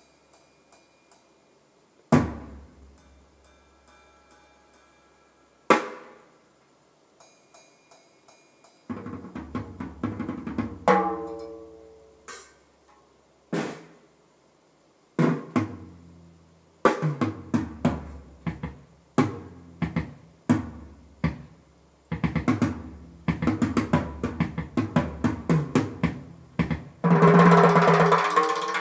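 A recorded drum kit played back through a pair of floor-standing hi-fi loudspeakers: single drum hits a few seconds apart, each fading out slowly, then busier fills and rolls, building to a loud passage heavy with cymbals near the end.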